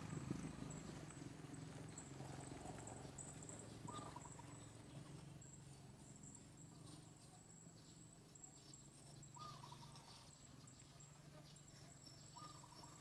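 Faint outdoor ambience: a steady high-pitched insect drone, with three short chirps spaced through it.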